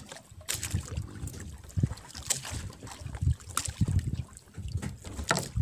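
A small fishing boat rocking on the sea, water slapping against the hull. Wind buffets the microphone in irregular gusts, with a few sharp knocks and splashes.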